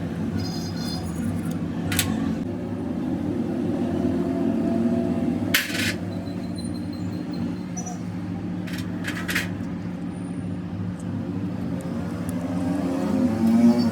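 A vehicle engine runs steadily with a low hum, and a few sharp clicks sound over it. Near the end a vehicle's pitch rises and then falls.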